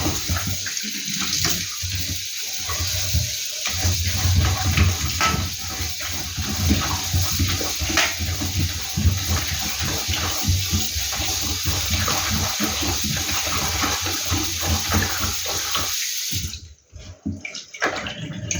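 Kitchen tap running hard, water splashing into the sink, then shut off about sixteen seconds in.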